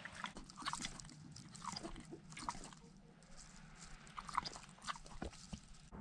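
A mini pig moving about on straw and dirt, heard up close from a camera strapped to her back: irregular crunching and rustling in uneven clusters.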